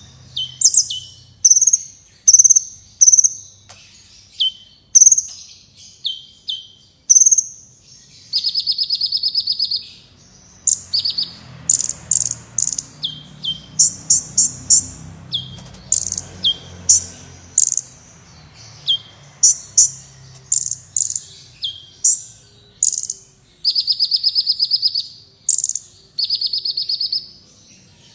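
Kolibri wulung sunbird singing: a fast string of thin, high chirps that sweep downward. A few rapid buzzy trills of about a second and a half come in among the chirps.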